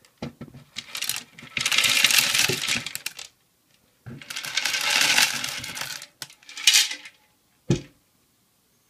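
Waterlogged expanded clay pebbles poured into a grow bed, rattling and clattering in several pours of one to two seconds each, with a single low knock near the end.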